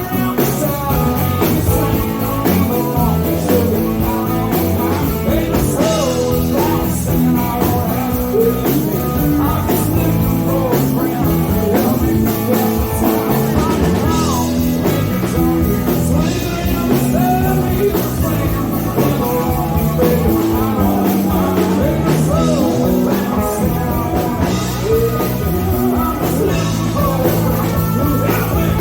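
A band playing a rock song live, with a voice singing over guitar and drums.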